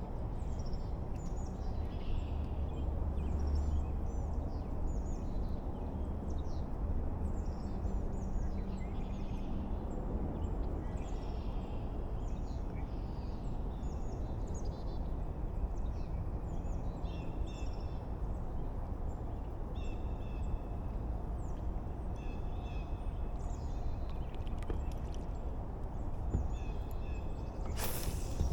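Several birds chirping and calling, with many short falling notes repeating throughout, over a steady low rumble. A sharp click comes near the end.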